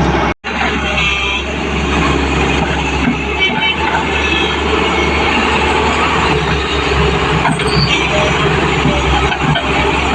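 Excavator's diesel engine running steadily under work, with a brief cut-out in the sound about half a second in.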